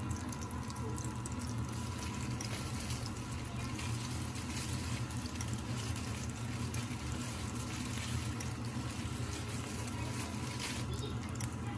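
A piece of cod coated in egg and flour sizzling in hot fat in a non-stick frying pan: a steady crackling fry, with a steady low hum underneath.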